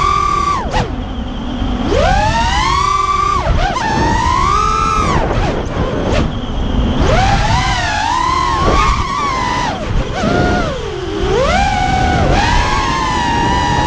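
FPV quadcopter's four 2206 2200kv brushless motors spinning 5x4x3 tri-blade propellers, heard from the onboard camera: a buzzing whine that swoops up and down in pitch with the throttle, dropping sharply several times, over wind rumble.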